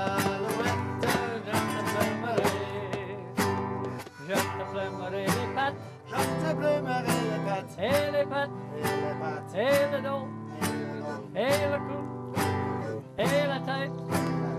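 Acoustic guitars strumming a country-style tune in a steady rhythm.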